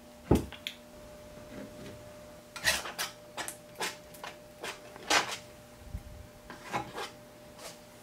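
Hand-sanding the back of a whiteboard-material panel to roughen it for gesso: about a dozen short, irregular rasping strokes, with a pause of a second or so after the first two. A faint steady hum runs underneath.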